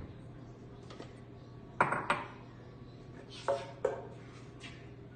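Kitchenware clattering: a small bowl and the blender jar are handled and set down on a granite countertop. The knocks come in two quick pairs, the second pair about a second and a half after the first.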